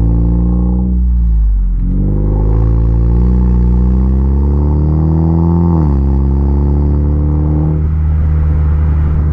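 Exhaust note of a Honda Accord 2.0T's turbocharged four-cylinder through a Thermal R&D performance exhaust with aftermarket front pipe and catted downpipe. Under acceleration the pitch climbs, dropping sharply about a second and a half in and again about six seconds in, then eases off near the end.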